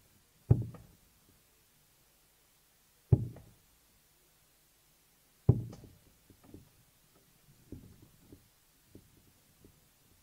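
Three darts thudding one after another into a bristle dartboard, about two and a half seconds apart, followed by a few much fainter knocks.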